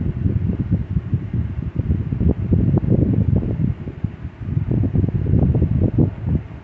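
Uneven low rumble of air buffeting the microphone, fluttering throughout.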